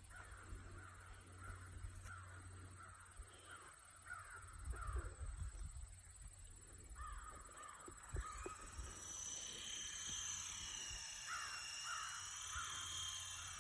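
A bird cawing faintly in quick repeated calls. From about eight seconds in, a high, gently wavering whine joins it: the small electric motor and rotor of a toy remote-control helicopter in flight.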